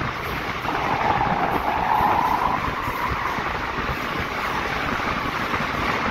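Train running at speed through a rail tunnel, heard from the open door: a loud, steady rushing roar of wheels on rail closed in by the tunnel walls. A wavering high-pitched whine rides over it and fades out about halfway through.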